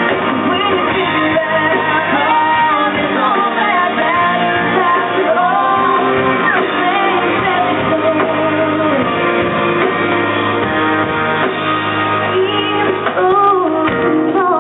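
A female lead singer singing a slow country ballad live, with her band accompanying.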